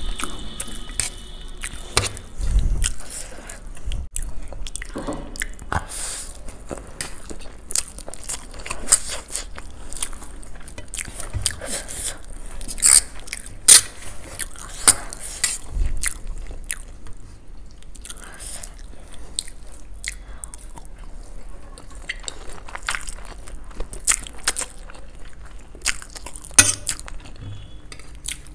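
Close-up eating sounds: people chewing and biting into masala Maggi noodles and fried gobi pakoda, with irregular crunches and sharp clicks of forks on steel plates.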